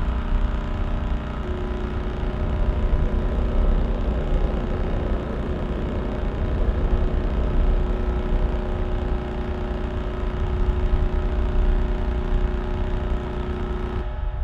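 Pulsar radio signal converted to audio: a dense, steady buzz with a deep rumble and many steady tones over a noisy hiss.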